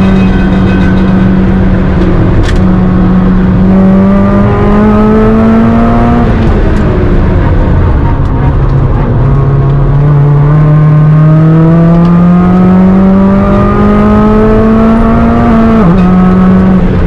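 Supercharged Mazda MX-5's four-cylinder engine heard from inside the car under hard acceleration. The note climbs steadily for a few seconds, drops away about six seconds in, then climbs again in one long pull before falling sharply near the end.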